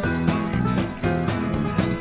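Background music: a steady beat with pitched instrumental notes changing in rhythm.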